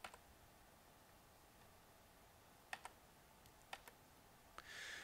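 Near silence with a few faint, separate computer clicks, mostly in the second half, as the presentation slides are advanced.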